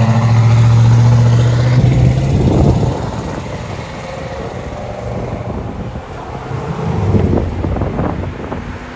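1995 Ford Bronco's 5.0L V8 through a Flowmaster Super 10 dual exhaust, a loud, steady deep exhaust note for the first two seconds as it pulls out, then fading as the truck drives off down the road.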